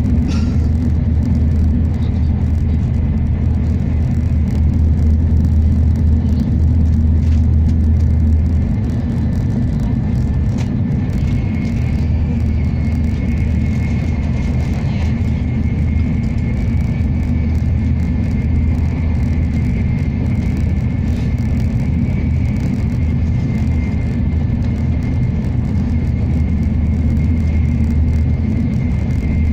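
Steady low rumble of a Nozomi Shinkansen bullet train running at speed, heard inside the passenger cabin. A faint high steady whine joins about a third of the way through.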